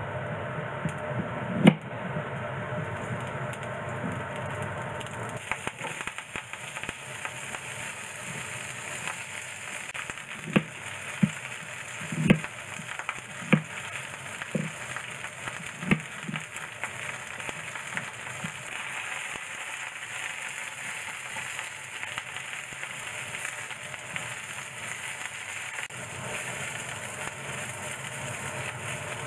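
Cut onion and green onion sizzling in a cast-iron skillet over high heat for browning. A sharp knock comes about two seconds in, and about six kitchen-knife chops hit a wooden cutting board between about ten and sixteen seconds in.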